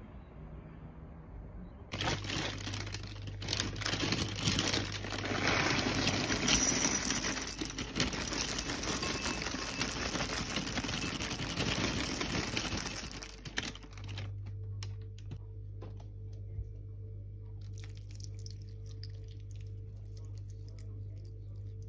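Cereal hoops poured from a plastic bag into a bowl: a loud, dense rattle and crinkle that starts about two seconds in and lasts about twelve seconds. It is followed by a quieter stretch with a steady low hum and faint clicks as liquid is poured from a carton onto the cereal.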